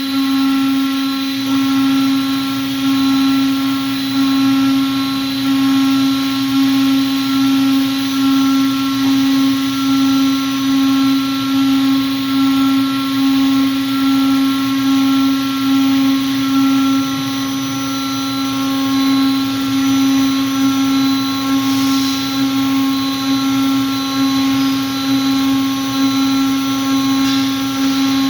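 Spindle of an AK6060H CNC mould carving router running steadily, a constant whine with a gently wavering level.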